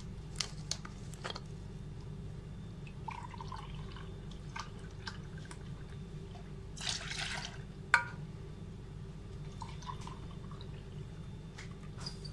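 Milk poured from a carton into a glass, with small clinks and taps of the glass and steel pot over a steady low hum. A short pouring splash comes about seven seconds in, and a sharp knock just after it is the loudest sound.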